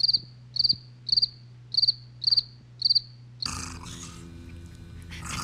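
Cricket chirping: six short, even chirps about half a second apart over a low hum, the stock 'crickets' of an awkward silence. About three and a half seconds in, the chirping stops and music comes in.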